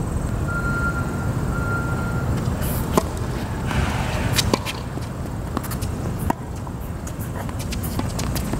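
Scattered sharp clicks of a tennis ball bouncing on a hard court, a few spaced about a second or more apart, over a steady low rumble; a brief thin tone sounds about a second in.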